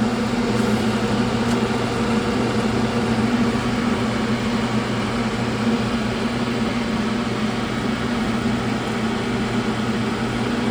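Steady fan hum with a low, even electrical drone that holds unchanged throughout.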